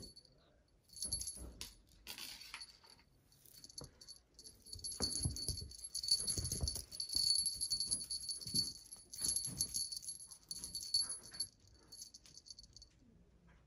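Small jingle bell on a cat teaser wand jingling in spurts as the wand is shaken and dragged, with a few soft low thuds mixed in.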